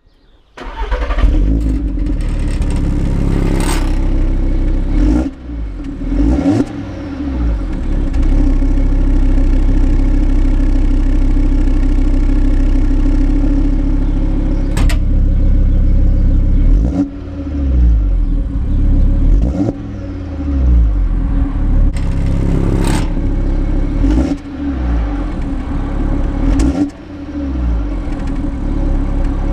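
Audi five-cylinder engine and exhaust running under way, engine speed repeatedly falling and rising. There are a few sharp clicks or knocks, about 4, 15 and 23 seconds in.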